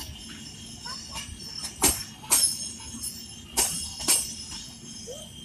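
Red-and-grey LHB passenger coaches of an express train rolling slowly past as it arrives. The wheels clack over rail joints in pairs about half a second apart, twice, over a steady rolling rumble, with a thin high metallic ringing.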